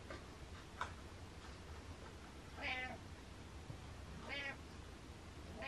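Domestic cat meowing: two short meows about a second and a half apart, with a third starting near the end. A brief click comes before the first meow.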